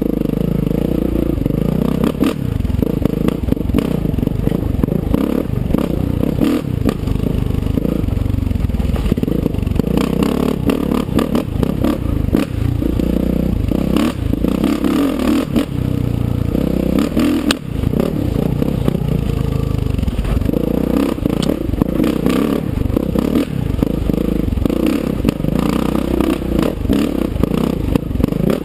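Kawasaki KX450F dirt bike's single-cylinder four-stroke engine running under throttle, its pitch rising and falling as it rides a rocky trail. Frequent sharp knocks and clatter come from the bike bouncing over rocks.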